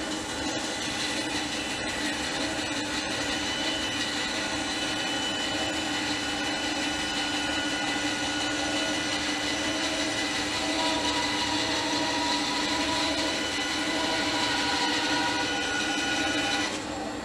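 Bandsaw ripping a long wooden board lengthwise: a steady whine of the running blade and motor with the rasp of the cut. The sound drops near the end as the cut finishes.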